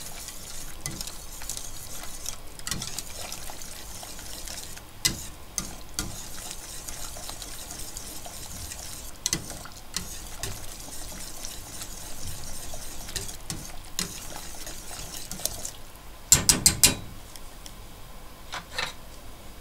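Wire whisk stirring a thick brown sauce in a stainless steel pot to dissolve the sugar: a steady swishing with light clicks of metal on metal. About sixteen seconds in, a quick run of four sharp knocks, after which the stirring stops.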